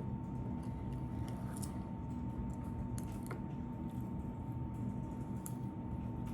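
Steady low hum with a thin, steady higher tone over it, and a few faint clicks scattered through.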